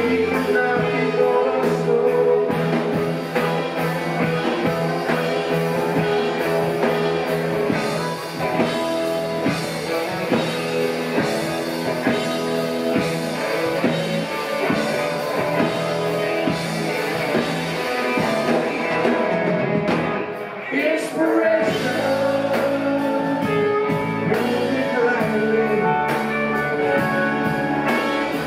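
Live rock band playing an extended jam: two electric guitars, bass, keyboards and drums, amplified. About 20 seconds in the music briefly thins out and the bass and drums pick up a different pattern.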